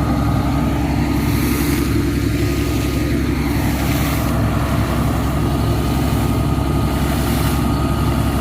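ELGI air compressor running steadily under power, a constant heavy engine drone with a faint thin whine above it.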